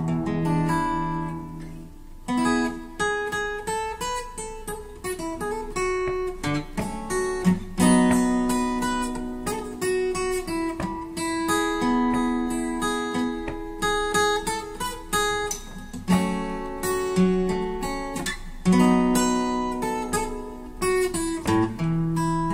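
Acoustic guitar played solo as the instrumental introduction to a song, separate picked notes ringing over chords.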